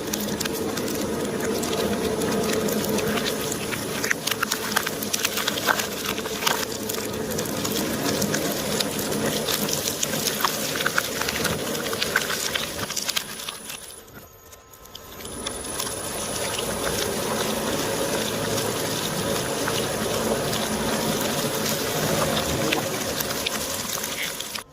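Shredder motor running with a steady hum while its blades crunch and crackle through toy surprise eggs. The sound drops away briefly about halfway through, then resumes.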